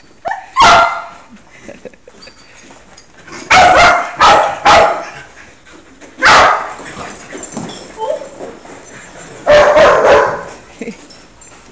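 Dogs barking in short, sharp barks. There is one bark near the start, three in quick succession about three and a half seconds in, another around six seconds, and a longer run of barks near ten seconds.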